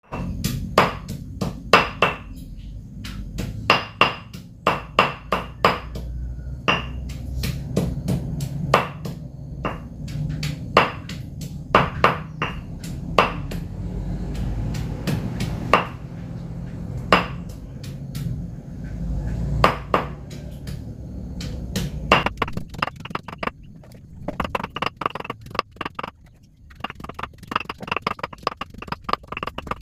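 Small hard food items being handled in dishes: sharp ringing clicks roughly once a second over a steady low rumble. In the last quarter the clicks turn faster and lighter.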